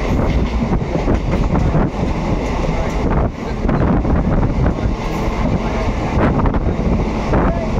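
Black Diamond Express passenger train running between stations: a steady rumble of the moving coaches with irregular wheel clatter over the rails.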